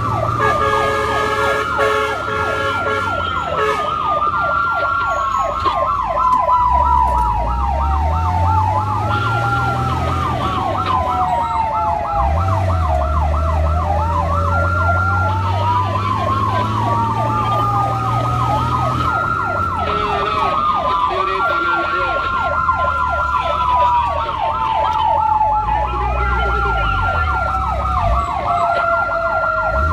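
Several emergency sirens from responding fire-and-rescue vehicles sound together: a fast repeating yelp overlapped by slower wails that rise, hold high and glide down. Underneath runs the low drone of a vehicle engine, rising and falling in pitch as it drives.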